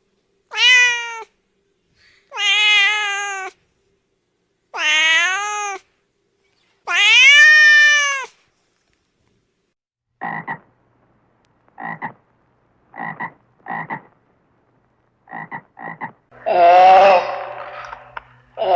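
A cat meowing four times, each meow long and falling in pitch. After a pause comes a run of about eight short, clipped animal calls. Near the end a louder, rougher animal call follows.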